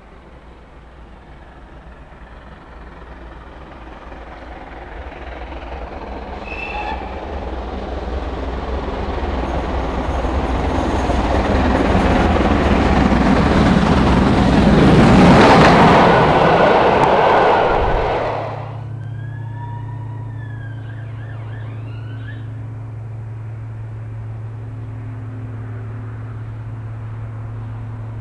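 GWR Hall-class 4-6-0 steam locomotive No. 4965 approaching and passing close by, working hard. Its exhaust and running noise build steadily to a peak, then cut off suddenly about eighteen seconds in, giving way to a steady low hum.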